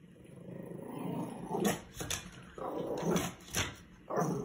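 Chihuahua growling low and getting louder, then breaking into a run of short, sharp barks and growly yaps from about a second and a half in.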